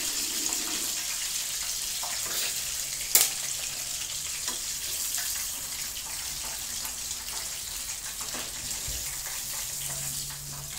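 Chicken thighs frying in hot oil, a steady sizzle, with one sharp click about three seconds in.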